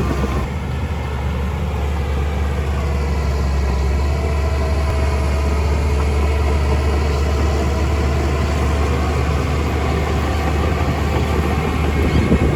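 Heavy diesel engine of earthmoving equipment running steadily at a low, even pitch that drifts slightly up and down.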